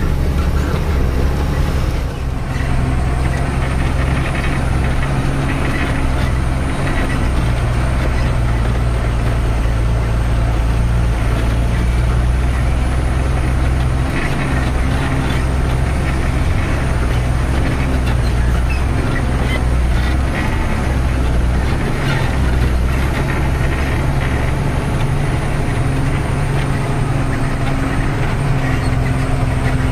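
Tata 3118 twelve-wheeler truck's diesel engine running steadily under way, heard from inside the cab as a continuous low hum with road noise.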